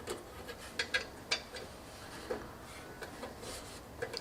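Light clicks, taps and scrapes of computer hardware being handled and fitted into a PC case, with a few sharper clicks in the first second and a half.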